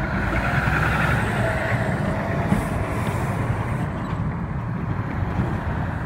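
Road traffic going over the grade crossing: passing cars and a tractor-trailer truck's engine running, a steady rumble with one short knock about two and a half seconds in.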